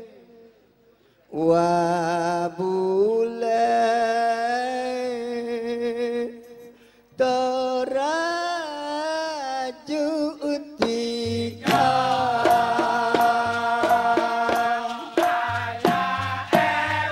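Dikir barat: a male lead singer sings long, ornamented melodic phrases solo into a microphone. About two-thirds of the way through, the chorus comes in with rhythmic hand-clapping and percussion under the singing.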